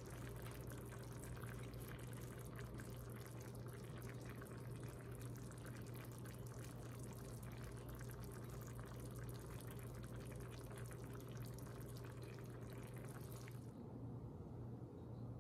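Meatballs in tomato sauce simmering in an enamelled cast-iron braiser: faint, steady soft bubbling and ticking over a low steady hum. The bubbling drops away near the end.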